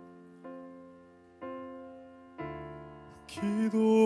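Soft piano accompaniment: three chords struck about a second apart, each left to ring and fade, then a male singer's voice comes back in with a breath near the end.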